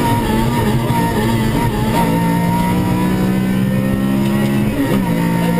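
Honda Civic VTi's four-cylinder VTEC engine pulling hard under load, heard from inside the cabin, with tyre and road noise under it. Its pitch drops about two seconds in and again near the end as the driver shifts up.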